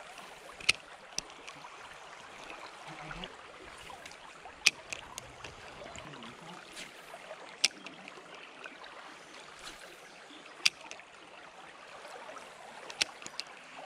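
Shallow stream running steadily over riffles, with several sharp clicks scattered through it.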